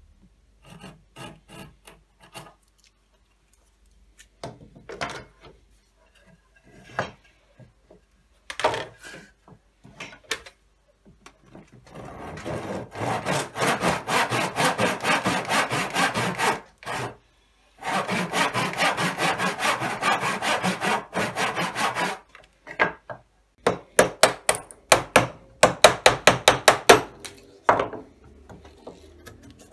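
A hand tool working wood in back-and-forth strokes, sawing or rasping: a few scattered strokes, then two long runs of quick strokes with a short break between them, then louder separate strokes near the end.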